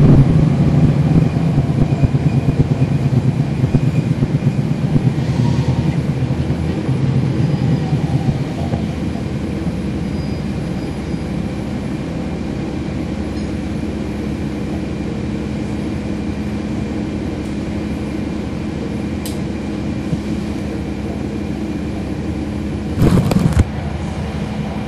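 Cummins ISL9 diesel engine of a 2011 NABI 40-SFW transit bus, heard on board. For the first several seconds it runs loudly with a pulsing note, then it eases off to a steady hum with a faint high whine. Near the end there is one short, loud burst of noise.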